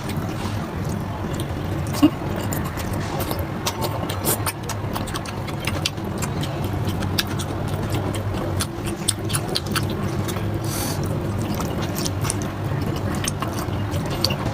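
Close-up eating sounds: wet chewing and lip-smacking clicks over a steady low background hum, with one sharper click about two seconds in.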